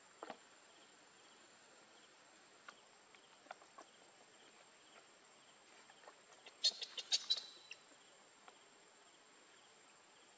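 Faint outdoor ambience with a steady, high insect drone. Scattered soft clicks sound through it, and a quick cluster of louder, sharp clicks comes about six and a half seconds in.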